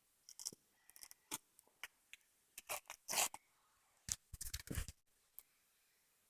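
Slime being handled and squished: a run of short, separate crackles and sticky pops, loudest about three seconds in and again between four and five seconds, after which it goes quiet.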